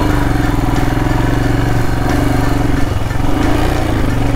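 Royal Enfield Himalayan's 411 cc single-cylinder engine running steadily while the motorcycle is ridden along a muddy dirt track.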